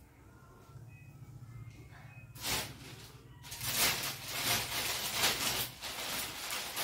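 Rustling of cloth and crinkling of plastic clothing packets as they are moved about. It starts with a short rustle about two and a half seconds in, and the crinkling goes on steadily through the second half.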